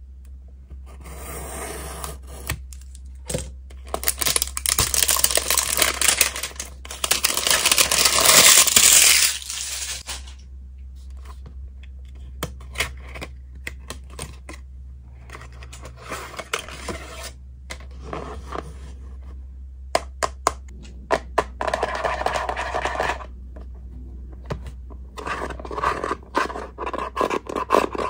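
Packaging being cut open with a box cutter and torn off a plastic toy lunch box: tearing and scraping of wrapping and a paper card sleeve, loudest for several seconds in the first third, with scattered sharp clicks and taps of the hard plastic box between stretches of tearing.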